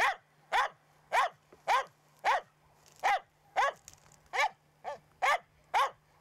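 Finnish Spitz barking steadily at a treed game bird, short sharp barks about two a second. This is the dense, loud bird-bark that marks the bird's tree for the hunter.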